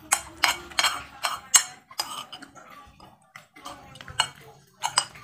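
Dishes and cutlery clinking together, about ten sharp clinks at uneven spacing, with a quiet gap about three seconds in.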